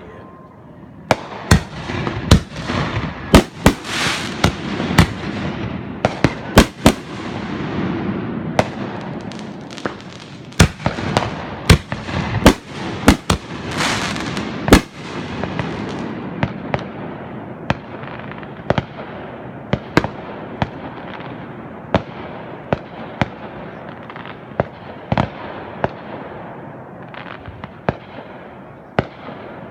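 Fireworks display: many sharp bangs in quick succession over continuous crackling. The bangs come thickest in the first half and grow sparser after about halfway.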